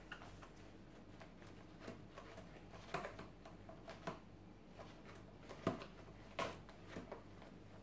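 Faint, scattered rustles and soft taps of a sewn-fabric dragon hand puppet being moved about by hand, its scales, head and claws shifting and brushing.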